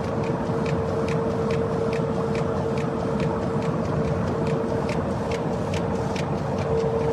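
Heidelberg Speedmaster SM 102 F five-colour sheetfed offset press running: a steady mechanical din with a constant whine and a light, regular ticking about twice a second.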